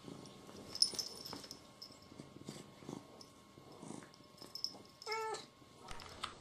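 A domestic cat gives a single short meow about five seconds in, among faint scattered ticks and rustling.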